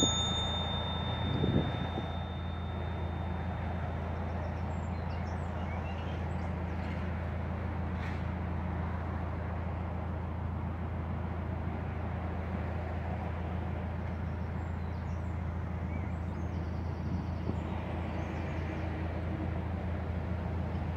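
Narrowboat's diesel engine running steadily at cruising speed, a low even hum, over the noise of motorway traffic. A bell-like chime rings at the start and fades over the first few seconds.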